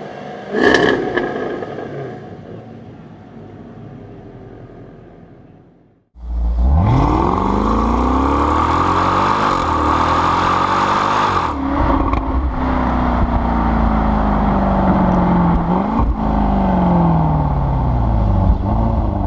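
Jaguar XFR-S supercharged 5.0 V8 through its quad exhaust, giving one sharp rev about half a second in that then dies away. After a sudden cut, a different car's engine pulls hard, filmed close to its exhaust, its pitch climbing and dropping back at several gear changes.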